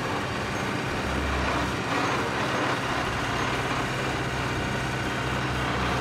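Tracked excavator's diesel engine running steadily, with a constant low hum under a dense mechanical rumble.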